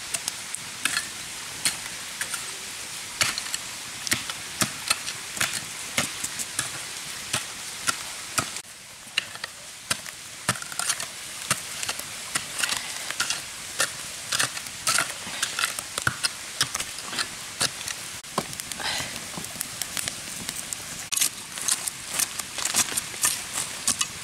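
Knife blade scraping bamboo in quick, irregular strokes, shaving off fine fibres, with scratchy clicks throughout.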